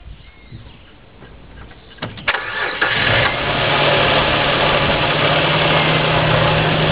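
Nissan VG33E 3.3-litre V6 being started: after a quiet two seconds the starter cranks briefly, the engine catches about three seconds in and settles into a steady idle.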